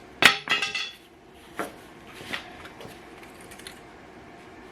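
Metal clanks as the intake manifold is pried and worked loose from a 5.2 L Magnum V8: one loud, ringing clank about a quarter second in, then a few lighter knocks and small ticks.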